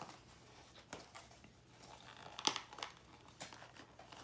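Faint crinkling and tearing of a small cardboard blind box being opened by hand, in scattered short rustles, with the loudest rip about two and a half seconds in.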